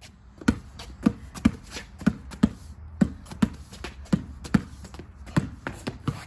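A basketball being dribbled on pavement: a steady run of bouncing thuds, about two a second.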